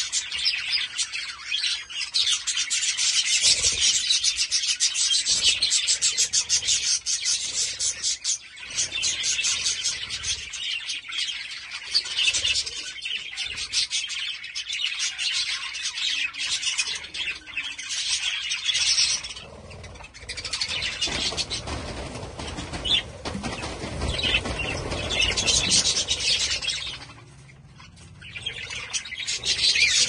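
A flock of budgerigars chattering and warbling, a dense run of fast chirps, with brief lulls about two-thirds of the way in and near the end.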